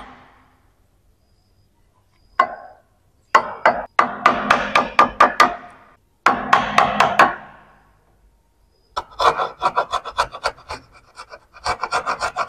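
Hammer blows driving a wood chisel into the edge of a wooden door to cut a lock mortise, in quick runs of strikes with short pauses. From about nine seconds in this gives way to fast rhythmic scraping as a flat hand tool pares wood out of the mortise.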